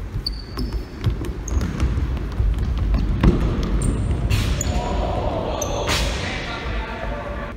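Futsal ball being kicked and bouncing on a sprung wooden hall floor, the impacts echoing in the large hall, with brief high squeaks of indoor shoes on the floor. Two harder strikes stand out about four and six seconds in.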